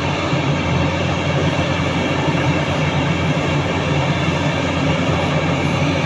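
Heavy tipper truck's diesel engine running steadily as the truck drives over rough, muddy ground, heard from inside the cab.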